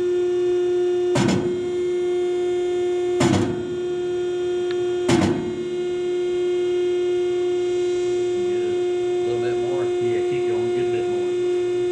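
A 65-ton Scotchman hydraulic ironworker running with a steady hum, punching holes in steel stock. There are three sharp punch strokes about two seconds apart in the first half, then the machine hums on.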